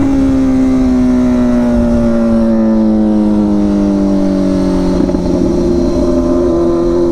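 Straight-piped Kawasaki ZX-6R inline-four engine running loud. Its pitch slowly falls as the bike eases off, a brief crackle comes about five seconds in, and the note climbs again near the end as it picks up revs.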